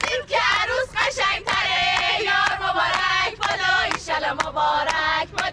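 A group of people singing together in chorus, with a sharp, steady beat two or three times a second under the voices.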